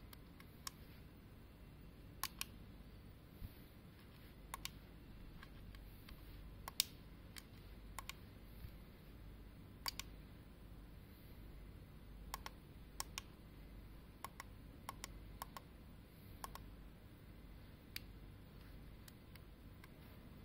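Small slide switches and tactile push buttons on an FPGA development board being flicked and pressed: sharp, short clicks at irregular intervals, some in quick pairs.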